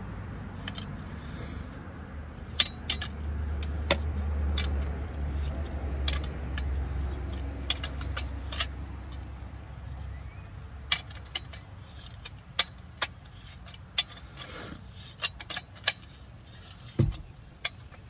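Small metal scrap parts (brass connectors and aluminum pieces) clinking and knocking as they are handled, with sharp clicks scattered throughout. A low steady rumble runs under the first half.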